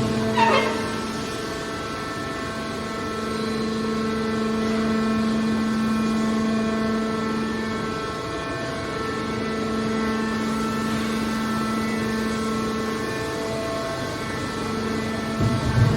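A machine running with a steady, even hum, likely a baler's motor, with a short falling squeal about half a second in.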